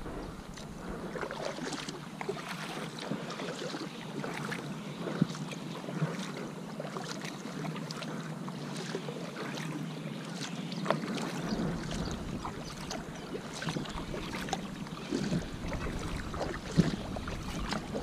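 Water splashing and trickling around a fishing kayak as it is paddled, with many small splashes and drips. Wind rumbles on the microphone from about halfway through.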